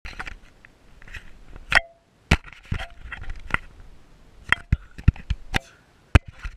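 A series of about nine sharp, irregularly spaced knocks and clinks, several with a brief ringing tone, like hard objects being set down or struck.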